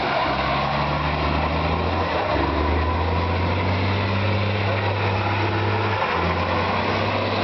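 Heavy truck tractor's diesel engine held at high revs while it drifts and spins its rear tyres, with a dense rushing noise over it. The engine note holds steady and shifts pitch in steps a couple of times, about two seconds in and again near six seconds.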